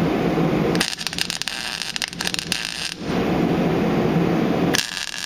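Welding arc crackling as tack welds are laid on a sheet-metal rocker panel: a tack of about two seconds starting about a second in, and another starting near the end. A steady low rushing noise fills the gaps between them.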